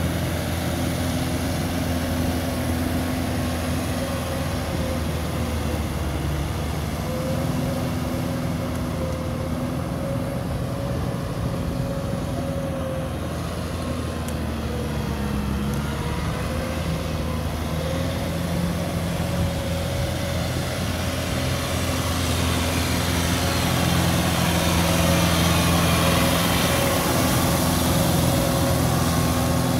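Kubota M6040 tractor's diesel engine running steadily under load as it pulls a KRX 183 rotary tiller through flooded paddy mud. The engine note wavers slightly in pitch, and it grows louder near the end as the tractor comes close.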